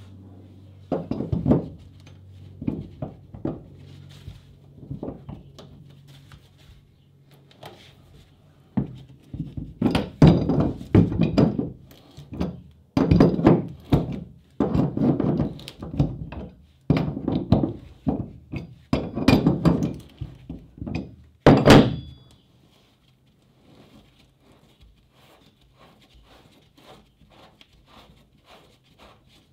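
A steel pipe wrench clunking and scraping on a seized through-hull fitting and its plywood backer board as the wrench is set on and turned to break the fitting loose. It is an irregular series of knocks, the last one the sharpest, about three quarters of the way through. After that there is only faint rubbing as the loosened fitting is spun by hand.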